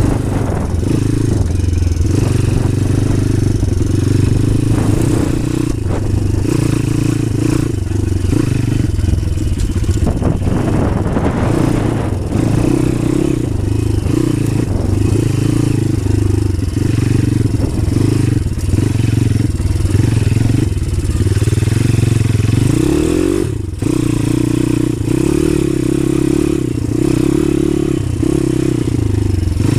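Pit bike's single-cylinder four-stroke engine running under way, its note rising and falling with the throttle. Late on it revs up in a climbing glide, then drops out briefly before picking up again, like a shift or a throttle snap-off.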